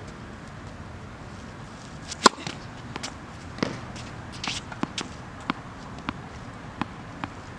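A tennis ball bounced on a hard court, a run of short sharp taps about half a second apart in the second half. A single louder, sharper pop about two seconds in stands out above the rest.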